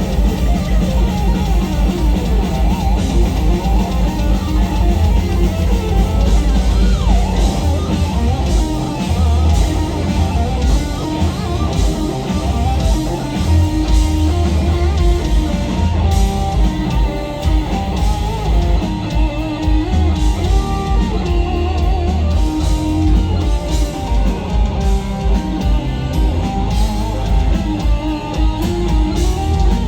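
Live instrumental metal: lead electric guitar playing over a drum kit, loud and dense with a heavy low end.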